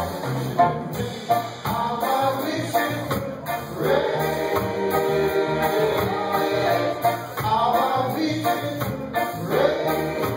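Live rocksteady band playing, with a man singing lead over electric guitar, keyboard and drums. The voice holds long notes about four seconds in and again near the end.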